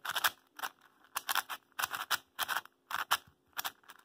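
Magnetic YuXin Little Magic 4x4 M speedcube being turned in quick repeated moves: short bursts of plastic layers scraping and clicking, about two or three a second. The turning is sandy and scratchy, typical of a new cube that is dry out of the box.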